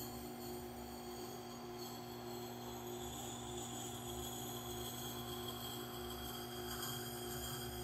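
Tormek T8 wet grinder running with a steady hum while a hatchet edge is ground against its turning stone in the axe jig.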